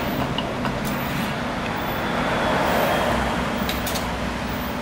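Granite pestle pressing and pounding a wet chili, garlic and lime-juice paste in a granite mortar: soft squelching with a few light stone knocks, over a steady background hum.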